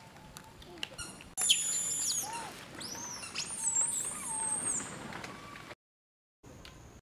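High-pitched animal calls, squeals and chirps that sweep up and down, starting suddenly about a second and a half in and running for about three and a half seconds, with lower arching calls mixed in. The sound then cuts out abruptly twice.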